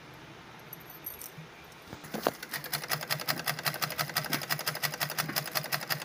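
Black domestic sewing machine stitching fabric, starting about two seconds in with a fast, even clatter of the needle mechanism over a low hum.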